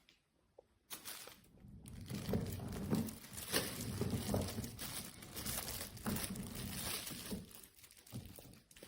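Irregular crinkling and rustling handling noise with many small clicks, starting about a second in and easing off near the end.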